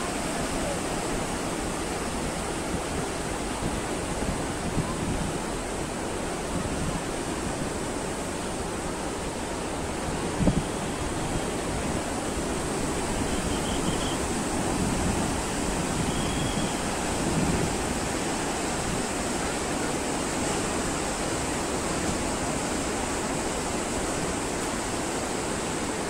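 Sea surf breaking along a rocky beach: a steady rush of waves, with one brief thump about ten seconds in.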